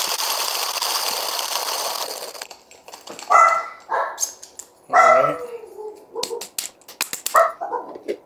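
Hand coffee grinder being cranked, its burrs crunching through whole beans, stopping about two and a half seconds in. Then a dog barks and whines several times, one whine sliding down in pitch, with a few sharp clicks in between.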